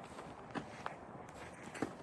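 Footsteps in snow: a few uneven steps.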